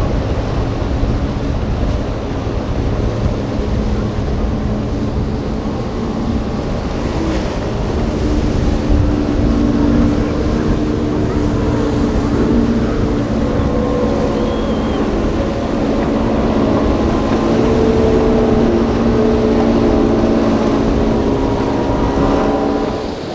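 Motorboat engines running, with several engine notes that shift in pitch as the throttle changes. The sound grows louder about a third of the way in and again in the second half, then falls away near the end.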